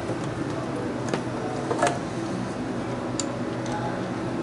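Steady hum of a running motor, with three sharp metal clicks about a second apart as hands work on hose fittings.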